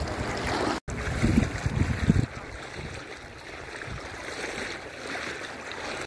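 Shallow sea water lapping and sloshing at the shore. Loud low rumbling gusts in the first couple of seconds, after a brief break, give way to a softer, even wash of surf.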